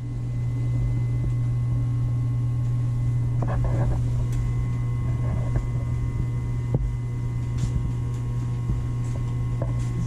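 Blower of a Coleman manufactured-home gas furnace with a constant-torque ECM motor, running with a steady low hum and faint whine. It ramps up and settles to a steady level about a second in. This is the loud blower noise the homeowner complains of, which the installer puts down to the motor's speed tap being set to high.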